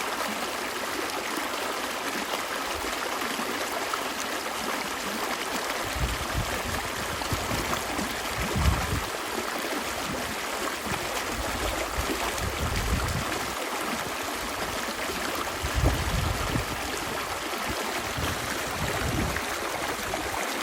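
Stream water running and gurgling steadily, with irregular low rumbling surges from about six seconds in.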